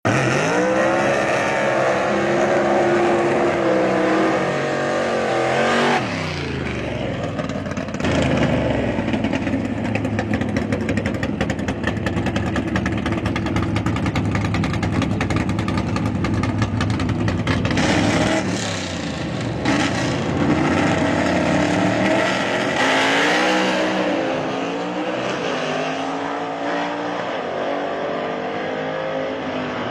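1965 Ford Falcon gasser drag car's engine revving hard and loud: the pitch climbs, drops about six seconds in, holds high for about ten seconds, falls, rises again, then settles lower, wavering.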